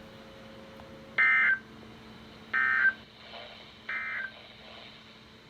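Emergency Alert System end-of-message data bursts: three short, shrill digital screeches about a second and a half apart, the third quieter, signalling that the Severe Thunderstorm Warning broadcast is over.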